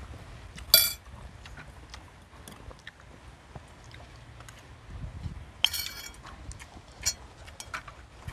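Tableware and metal utensils clinking: a sharp clink with a brief ring about a second in and another a little past halfway, among lighter taps and clicks of chopsticks and metal tongs on the grill pan and bowls.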